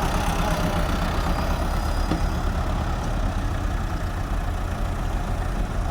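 Large diesel engine running steadily with a deep, low rumble.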